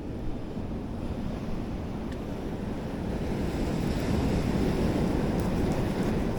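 Sea surf washing against rocks, with wind buffeting the microphone; the wash swells about halfway through.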